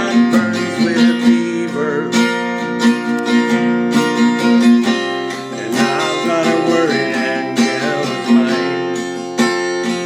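Acoustic guitar being strummed and picked, playing a song.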